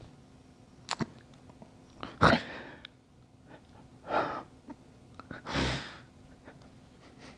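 A man's forceful breaths or sighs, three of them a second or two apart, the first the loudest, with a couple of small mouth clicks before them.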